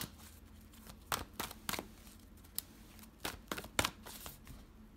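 A deck of oracle cards being shuffled by hand, giving irregular soft clicks and slaps of card against card.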